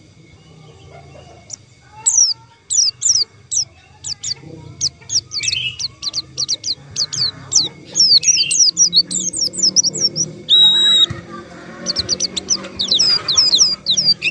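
White-eye (pleci) song: fast series of short, high, down-slurred chirps that begin about two seconds in and keep going, with one brief steady whistled note about two-thirds of the way through.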